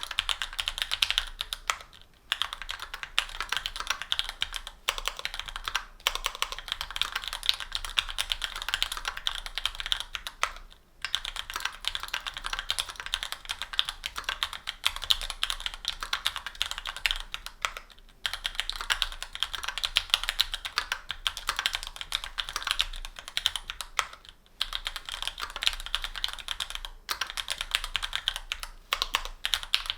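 Continuous fast typing on a mechanical keyboard fitted with stock Gateron Pro Yellow linear switches (50 g), an aluminium plate, GMK doubleshot keycaps and a foam sponge: a dense run of keystroke clacks with short pauses now and then.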